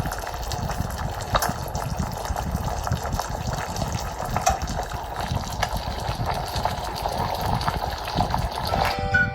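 Steady splashing water with scattered clicks and knocks; music begins right at the end.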